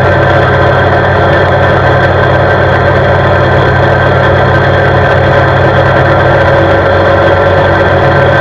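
CFMoto CForce 520 ATV's single-cylinder engine running steadily at an even cruising speed on asphalt, heard loud and close from the vehicle's mounted camera.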